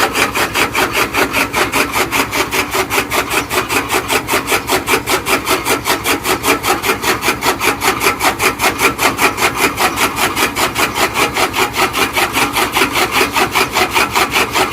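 Toka machine (chaff cutter) chopping fodder grass for cattle, its blade cutting in a fast, even rhythm of strokes.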